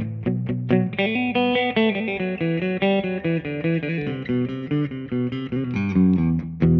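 1979 Ibanez Musician MC550 electric guitar played through a Fattoria Mendoza Tremo tremolo pedal into a Mesa Boogie Lone Star amp on its clean channel. It plays a quick picked melodic line of single notes and chords.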